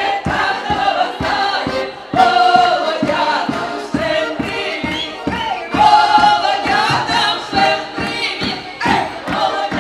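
A group of women singing a folk song together with accordion accompaniment and a bass drum keeping a steady beat.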